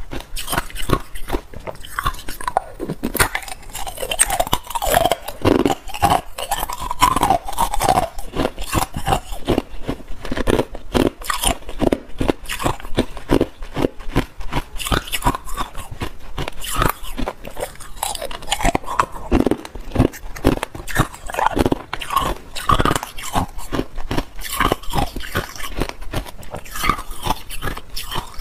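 Hard clear ice being bitten and chewed close to a clip-on microphone: rapid, irregular sharp cracks and crunches that go on without a break.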